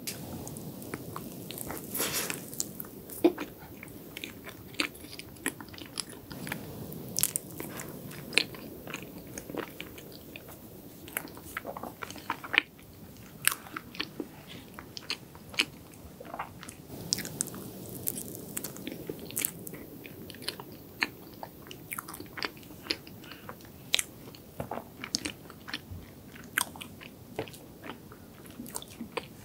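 Close-miked eating sounds of a ladyfinger tiramisu: biting and chewing, heard as a steady run of small sharp clicks and crackles. A wooden fork cuts into the cake at times.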